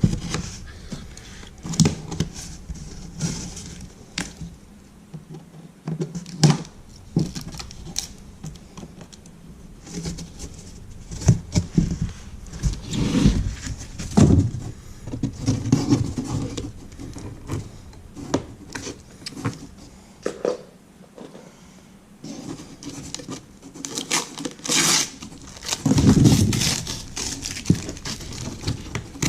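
Cardboard shipping box and packing material being cut open and handled by hand: irregular scrapes, taps, tearing and crinkling.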